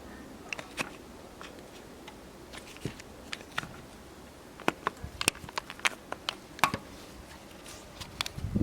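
Irregular light clicks and taps, as of small parts or tools being handled, coming more often after about four and a half seconds.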